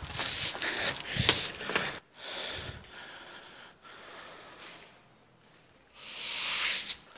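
Rustling and handling noise from a phone carried while walking, then quieter, with a breathy hiss of about a second near the end.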